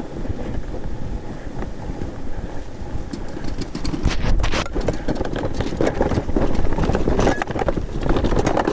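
Snowracer sled running down through powder snow: the skis hiss and scrape over the snow, with a heavy wind rumble on the microphone. From about three seconds in come a string of sharp knocks and jolts as the sled goes over bumps.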